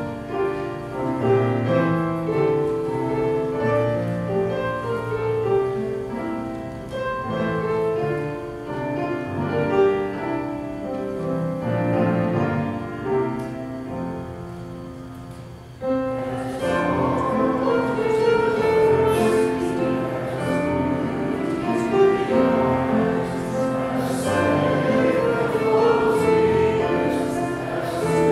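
An instrumental introduction to a hymn is played on a keyboard. About halfway through, the congregation comes in, singing the first verse together with the accompaniment.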